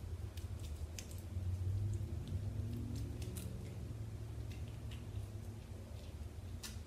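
Wet hands rubbing and wringing together, with faint squelches and small scattered clicks, over a low steady hum.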